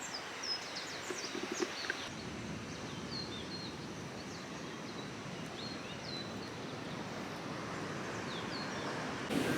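Distant surf as a steady rushing wash, with small birds chirping again and again over it and a few light knocks in the first two seconds. The rush grows louder just before the end.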